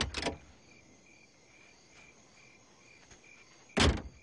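Crickets chirping in a steady pulse, about two chirps a second. A car door opens with two quick sharp clunks right at the start and shuts with a louder thump near the end.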